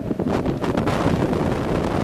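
Strong, gusty storm wind buffeting the camcorder microphone as a continuous rumbling roar, growing a little stronger about half a second in.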